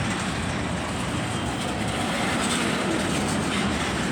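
Freight train cars rolling past close by: a steady, unbroken noise of steel wheels running on the rails.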